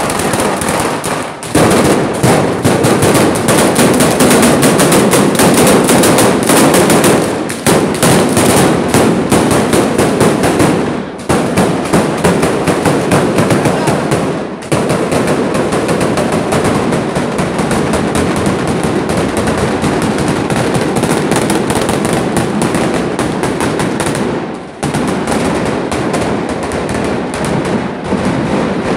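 A batteria, a long chain of street firecrackers, going off in a dense, rapid, continuous run of bangs, with a few brief lulls.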